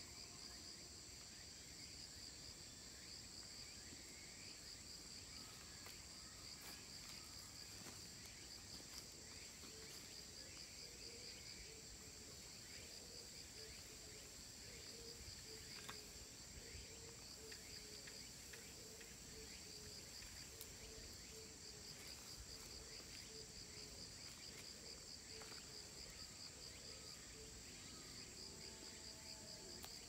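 Faint insect chorus in a bamboo grove: a continuous high buzz with a rapidly pulsing trill just below it. A faint low note repeats about twice a second through much of the middle.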